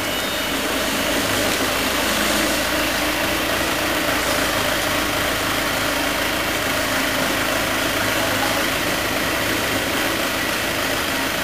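Heli forklift's engine idling steadily.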